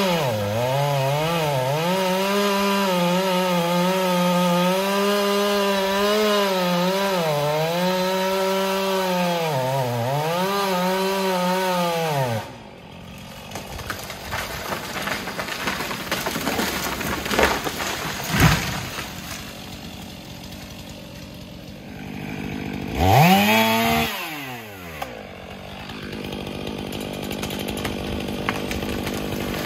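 Chainsaw running at full throttle in a cut for about twelve seconds, its pitch dipping each time it loads up, then dropping back. A couple of sharp knocks follow, and the saw is revved up and let down once more near the end before running on lower.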